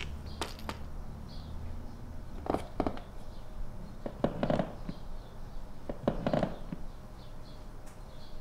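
A few sharp clicks, then knocks and thumps in three short clusters a second and a half to two seconds apart.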